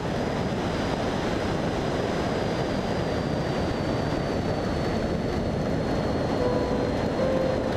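De Havilland Tiger Moth biplane in flight: its Gipsy Major four-cylinder engine running steadily under heavy wind rush on the wing-mounted camera.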